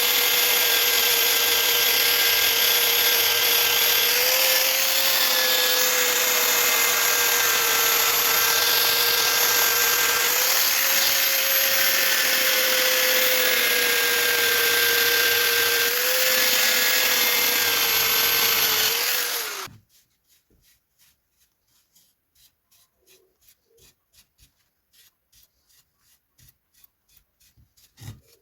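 Electric belt sander running with a steady motor whine and rubbing noise, its pitch wavering slightly a few times as wood is worked. It is switched off about two-thirds of the way through and stops quickly, leaving only faint, fast ticking.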